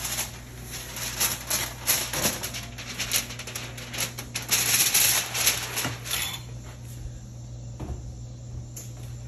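Foil-covered disposable aluminium tray crinkling and scraping as it is slid out of the oven and carried to the counter, the rustling loudest near the middle and stopping about six seconds in. A steady low hum runs underneath.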